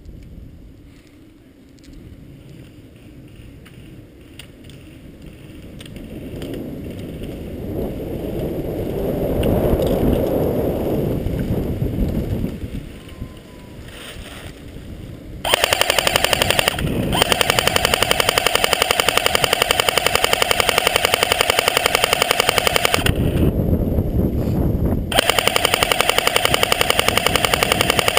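Airsoft gun firing on full auto, a loud, very rapid, even stream of shots that starts about halfway through and runs in long bursts with two short breaks. Before it, a rushing noise swells and fades.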